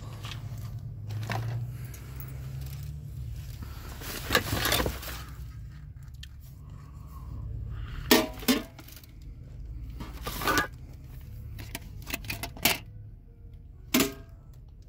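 Rummaging through rubbish inside a large metal commercial bin: bags and boxes being shifted, with several sharp knocks and clinks of items, the loudest just after eight seconds in, over a steady low rumble.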